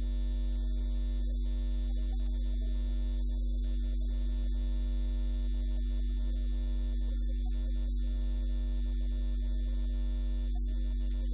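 Steady low electrical hum with fainter steady higher tones over it, unchanging throughout.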